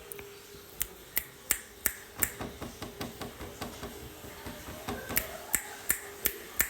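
A run of sharp, dry clicks, about two or three a second and unevenly spaced, over a faint steady hum.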